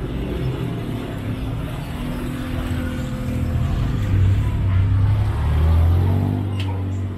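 A motor vehicle's engine running close by, growing louder from about four seconds in and easing off near the end.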